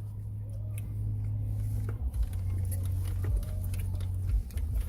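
Eating sounds: soft scattered clicks of chewing and of a utensil in a poke bowl, over a steady low hum.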